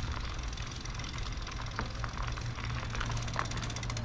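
Diesel engine idling with a steady low hum that grows a little stronger about two seconds in, with a few sharp clicks over it.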